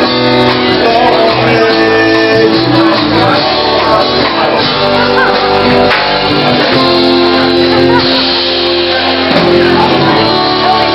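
Live amplified band playing a song: guitars, electric bass and drum kit, with a man's singing voice.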